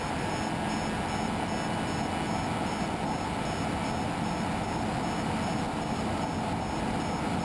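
Steady wind noise on an outdoor microphone in a strong breeze, with a faint, evenly pulsing high-pitched beep beneath it.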